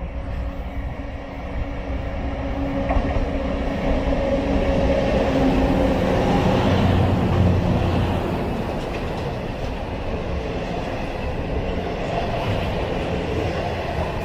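Loram rail grinder train passing close by, its diesel engines running under the rumble of steel wheels on the rails. It grows louder as the cars draw level and is loudest about halfway through.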